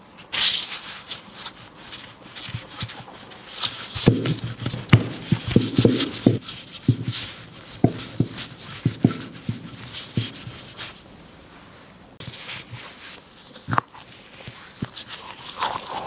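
Wooden rolling pin rolling out a ball of glutinous rice dough on a silicone baking mat: a run of soft knocks and taps, with the crinkle of thin plastic gloves. It goes quiet briefly about eleven seconds in.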